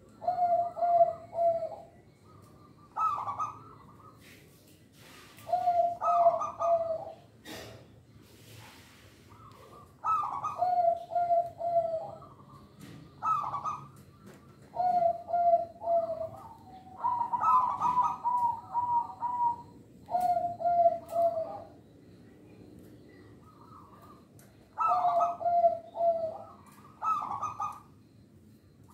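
Zebra dove (perkutut) cooing over and over. Each phrase is a higher opening note followed by a quick run of lower rolling notes, and the phrases come every two to four seconds.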